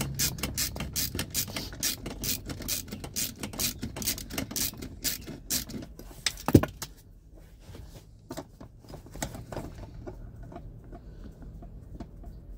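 Socket ratchet clicking rapidly, about six clicks a second, as a mounting nut of the HBB ABS brake unit is backed off. The clicking stops about six seconds in with one sharp knock, followed by a few scattered clicks.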